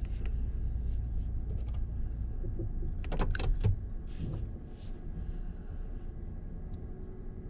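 Truck engine idling with a steady low rumble, and a brief cluster of clicks and rustling about three seconds in.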